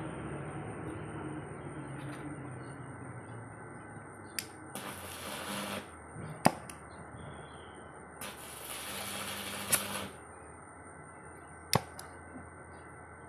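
Gas welding torch hissing steadily, with two louder bursts of hiss and a few sharp metallic clicks.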